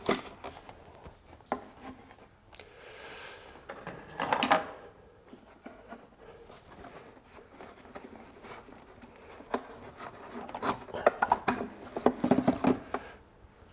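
Plastic clicks and rubbing from the engine air filter housing as its clip-on lid is flipped open and the filter element is pulled out. Scattered sharp clicks, a louder clatter about four seconds in, and a busy run of clicks and scraping near the end.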